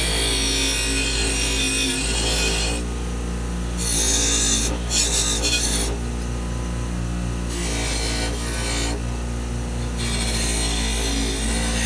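Delta bench grinder with a wire wheel scrubbing old paint off a steel lamp part. The motor hums steadily under a harsh scratching that breaks off briefly about three times as the part is lifted off the wheel and turned.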